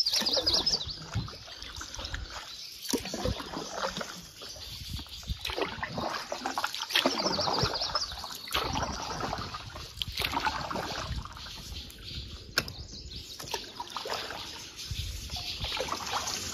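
Double-bladed kayak paddle dipping and splashing into moving water, one stroke every second or two, as a canoe is paddled against a current.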